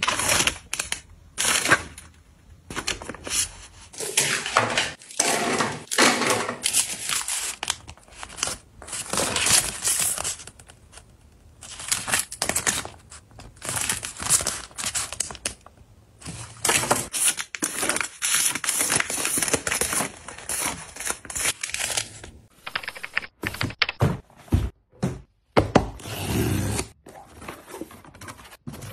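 Close-up handling of skincare packaging: repeated rustling and crinkling of plastic and paper wrappers, with light knocks and clunks of bottles and jars being set down. Cardboard box flaps are handled near the end.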